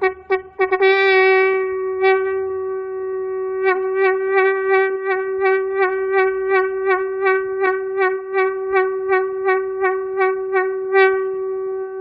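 A single conch shell blown on one steady note. A few short blasts open, then the note is held, and from about four seconds in it pulses about three times a second with the player's breath.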